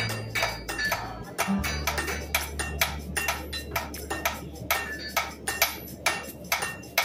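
Background music with held low bass notes, over a blacksmith's hammer striking hot metal on an anvil: several ringing blows a second.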